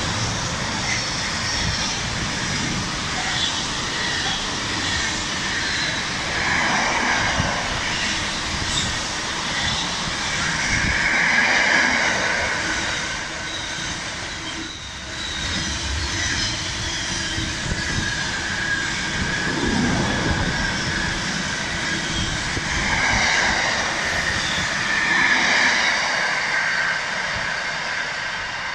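Intermodal freight wagons of a container train rolling past at speed, with a steady rumble and clatter of wheels on rails. Bouts of high wheel squeal come several times. The noise eases a little near the end as the last wagons go by.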